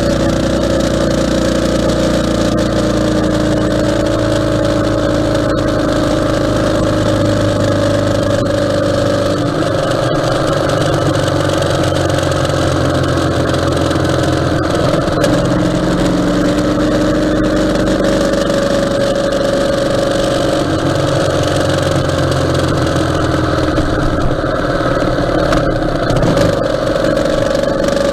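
Ural motorcycle's air-cooled flat-twin engine running while riding on the road, its note shifting up and down several times with speed, over steady wind and road noise.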